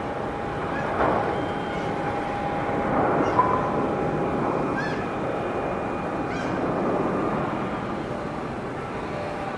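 Airbus A350-900's Rolls-Royce Trent XWB engines at taxi power: a steady jet rumble with a steady whine running through it, and a few short high chirps over it.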